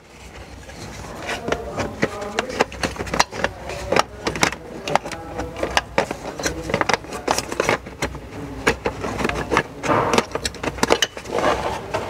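Irregular clicks, taps and rattles of a plastic seat-belt pillar trim panel being handled while the seat belt webbing and its anchor plate are fed back through it.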